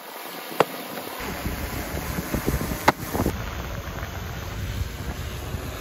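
Wind buffeting the microphone with a low rumble that thickens about a second in, and two sharp clicks, about half a second and three seconds in.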